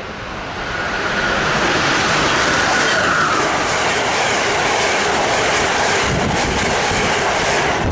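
Amtrak train of Amfleet coaches passing close by at speed: a loud, steady rush of wheel and air noise that builds over the first second. A faint high whine runs through the first few seconds, and sharp wheel clicks come in the later part.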